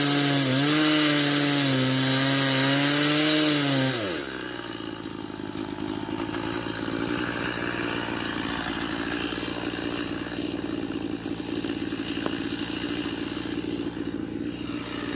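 Two-stroke chainsaw at full throttle cutting through a fallen log, its pitch wavering under the load. About four seconds in the throttle is released, the pitch falls, and the saw settles to a steady idle.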